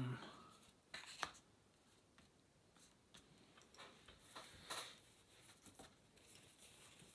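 Faint rustling and a few soft taps of playing cards being handled and laid down, with the clearest clicks about a second in and again near the middle.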